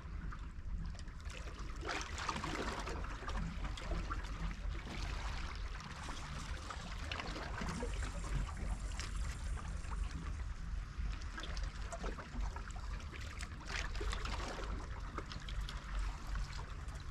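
Water trickling and lapping among shoreline rocks, an irregular wash of small splashes over a low steady rumble.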